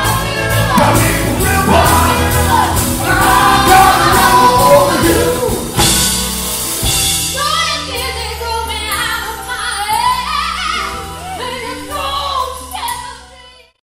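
Tribute band playing live: rock band with several voices singing, drums hitting hard in the first half, then long held sung notes. The music cuts off abruptly near the end.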